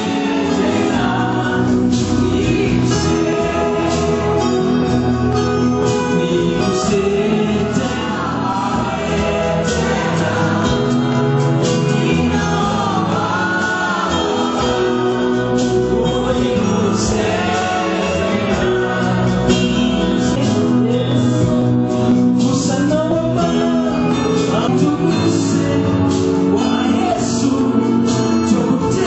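Church congregation and worship team singing a gospel worship song together, with keyboard accompaniment.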